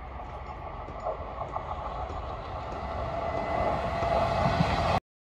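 Electric suburban local train approaching along the track, its rumble growing steadily louder, with a few light clicks. The sound cuts off suddenly near the end.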